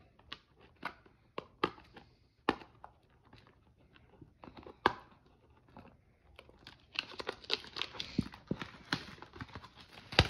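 Clear plastic shrink wrap being torn and peeled off a trading card blaster box. Scattered sharp crackles and clicks grow into denser crinkling over the last few seconds, with one loud snap near the end.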